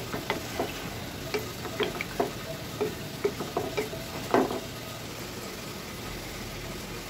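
Wooden spatula stirring chicken curry in a metal pan, with irregular scrapes and knocks against the pan over the first four seconds or so, the loudest about four seconds in. Underneath is a steady sizzle of the gravy cooking, which is left on its own near the end.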